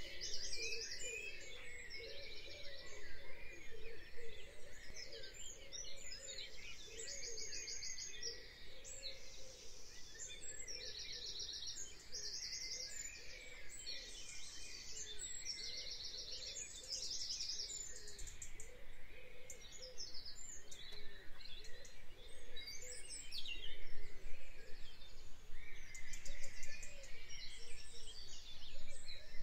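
Birdsong: several birds chirping, with short rapid trills repeating throughout over a faint background hiss.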